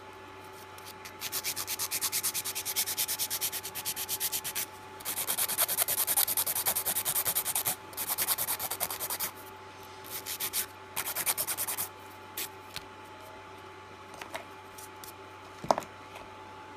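Hand nail file rasping quickly back and forth over a hard acrylic dip-powder nail, in several bursts of rapid scratchy strokes; the scratchy sound is the sign of set acrylic. The filing stops about twelve seconds in, followed by a few light taps and a sharp click near the end.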